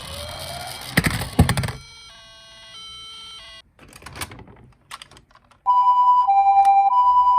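A burst of sharp clattering knocks about a second in, then near the end a two-tone Japanese-ambulance "pee-paw" siren starts, alternating a high and a low tone about every half second.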